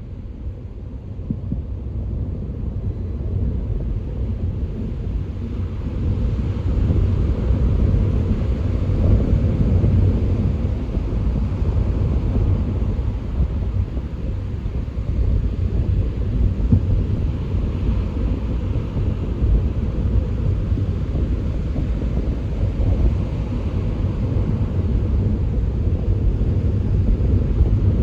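Strong wind buffeting the microphone with a heavy, steady low rumble, over churning ocean surf whose hiss swells and fades as waves break.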